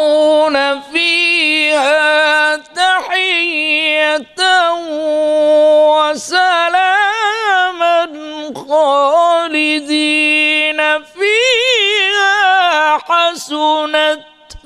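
A male qari reciting the Quran in drawn-out melodic tajweed, one voice holding long notes with wavering ornaments and short breath pauses between phrases.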